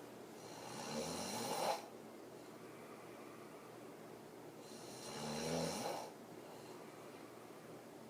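A woman snoring very hard with her mouth open, lying on her back in deep sleep. Two snores about four seconds apart, each swelling for over a second, rising slightly in pitch, and cutting off abruptly.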